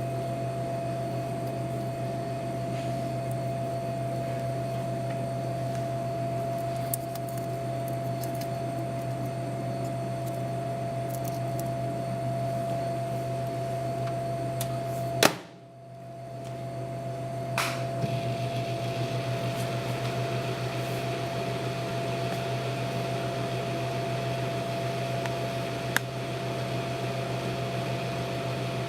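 Microwave oven running with a steady hum. About halfway through there is a sharp click and a brief drop in sound before the hum resumes, and a few faint clicks are scattered through it.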